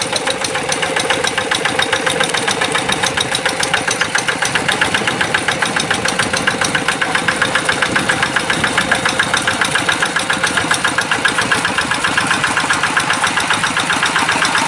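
Kubota RD85 single-cylinder diesel engine of a Quick G1000 Boxer hand tractor running steadily as the tractor works through a flooded rice paddy, a fast, even chugging beat.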